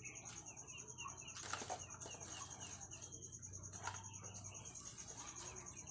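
Faint yard ambience: birds chirping over a steady, rapid high-pitched pulsing, with a few light clicks from the bag being handled about a second and a half and about four seconds in.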